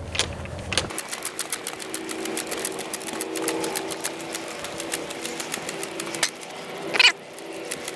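Rapid, even mechanical clicking, about eight clicks a second, like a ratchet freewheeling. It starts about a second in and stops shortly before one louder knock near the end.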